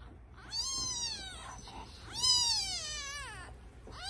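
Kitten about ten days old crying: two long, high-pitched mews, each rising and then falling in pitch, the second louder and longer, with a third starting at the very end.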